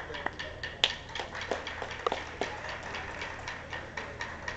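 Irregular sharp wooden clacks, several a second, the sound of rattan escrima sticks knocking together, some ringing briefly; the strongest comes a little under a second in.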